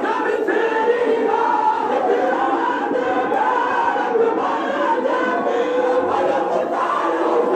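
A crowd of men chanting a noha, a mourning lament, together in many voices, sung continuously without a break.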